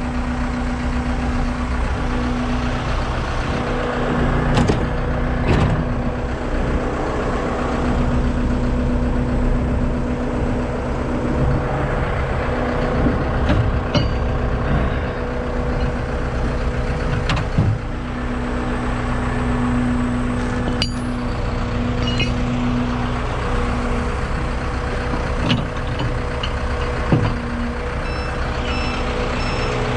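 A heavy rotator tow truck's diesel engine idling steadily. Now and then steel shackles clank sharply as they are handled in its side compartment.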